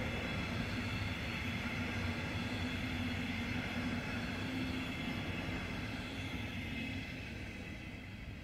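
A passenger train of double-deck coaches behind a DB class 146 electric locomotive rolling past: a steady rumble of wheels on rail with a low hum. The sound fades near the end as the last coach goes by.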